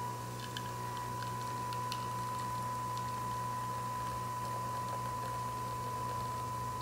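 Nespresso Vertuo capsule machine brewing: a steady motor whine and hum as it spins the capsule, with coffee streaming into a glass.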